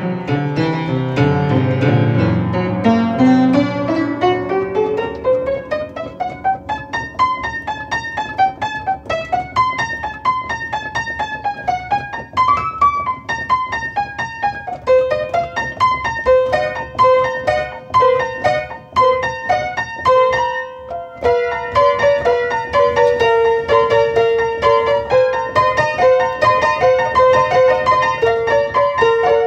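Solo piano improvisation: low chords give way to a long rising run of quick notes, then flowing figures that climb and fall. From about halfway, one middle note repeats under higher notes, with a brief pause about two-thirds through.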